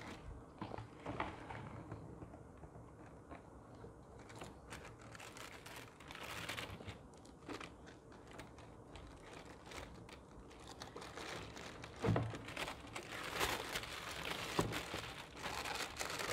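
Tissue-paper wrapping rustling and crinkling as hands unwrap hiking boots in a cardboard shoebox, with a single knock about twelve seconds in. The rustling is louder and busier over the last few seconds.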